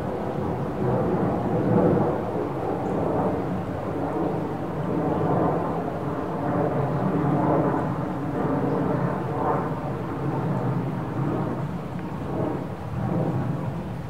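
Close-miked, amplified field recording of a small shallow stream running over rocks, a continuous wash of water noise that swells and eases, with a low rumble underneath.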